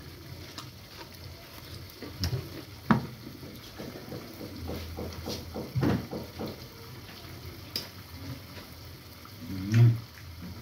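Kitchen clatter: scattered knocks and clinks of utensils and dishes, with a quick run of taps in the middle, over a faint sizzle from a pan frying on a gas stove. A short low vocal sound comes near the end.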